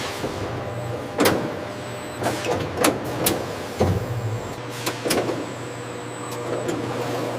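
Factory machinery running with a steady hum, and irregular sharp clicks and metallic knocks every second or so.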